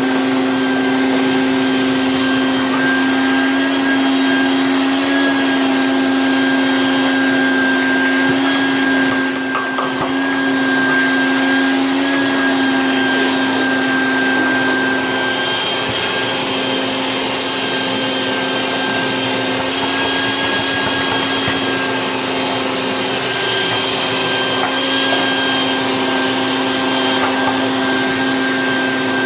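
A small electric motor running steadily with a constant whine, dipping briefly about nine seconds in.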